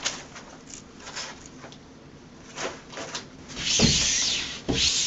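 Hands rubbing and smoothing an adhesive vinyl wall wrap onto a wall, with rustling of its backing paper and light scattered taps. A louder stretch of rubbing with a thump comes about four seconds in.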